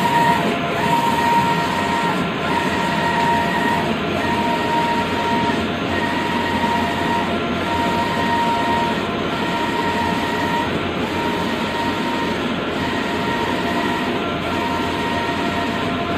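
Stratojet Hawk wide-format inkjet printer running, its print-head carriage shuttling back and forth over a steady mechanical noise. A whine from the carriage drive drops out briefly about every 1.7 seconds as the carriage reverses at the end of each pass.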